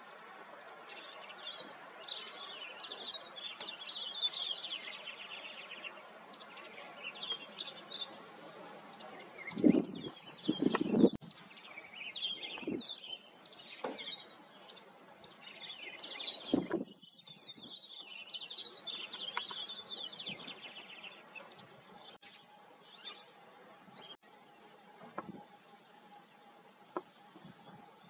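Small songbirds chirping and calling over one another, with short notes sweeping down from high pitch and quick dry trills. A few dull low thumps come in the middle, the loudest two close together.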